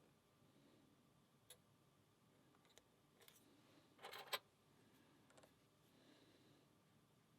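Faint, scattered clicks of a lock pick and tension tool working the pins inside a lock, with a quick rattle of clicks, the loudest, about four seconds in. The picker suspects the pins are serrated, but is not sure.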